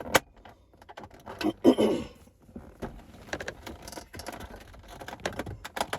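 Plastic clicks, taps and rattles of car-interior trim being pried and popped off the center-console armrest lid, in small irregular knocks with a few louder snaps.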